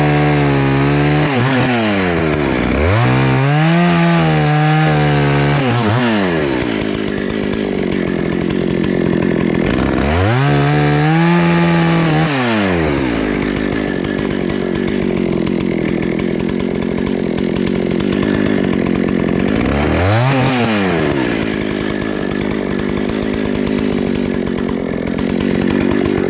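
Two-stroke Husqvarna 288XP chainsaw revving up and falling back four times, running steadily under load between the revs, as if cutting through wood.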